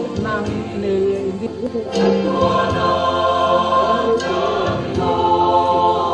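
A choir singing a hymn in slow, held notes.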